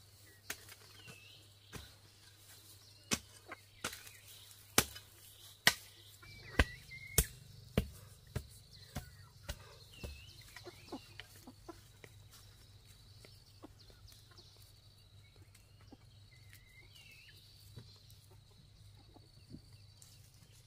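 Hand digging in soil: a tool strikes the ground in sharp knocks, about one a second for several seconds, then they thin out. Chickens give short clucks and chirps throughout.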